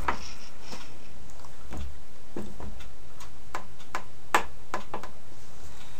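Scattered light clicks and taps at a computer desk, irregularly spaced, over a steady low hum; the sharpest click comes about four and a half seconds in.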